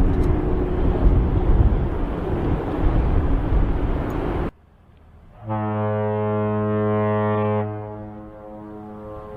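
Ships' horns of passenger ferries sounding their signals. A loud, rough horn blast cuts off suddenly about four and a half seconds in; a second later a deep, steady horn blast sounds for about two seconds, then fades into its echo.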